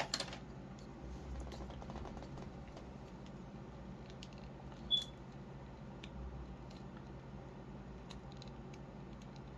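Faint plastic clicks and rubbing as the tail piece is pushed into an S.H.Figuarts action figure, a joint slightly difficult to hinge in, with one sharper click about five seconds in.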